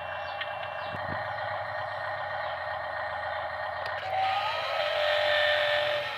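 Electric motors and gearing of radio-controlled model trucks running, a steady whine that gets louder and changes pitch about four seconds in.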